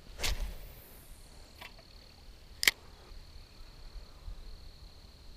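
A spinning rod whipped through the air in a cast, a short swish, then one sharp click about two and a half seconds later, with a few faint small ticks after.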